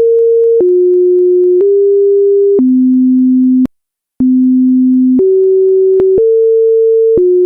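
Synthesized pure sine-wave tones, each held for about a second at a different pitch, stepping down through four notes, breaking off for half a second, then stepping back up the same notes, with a click at each change of pitch.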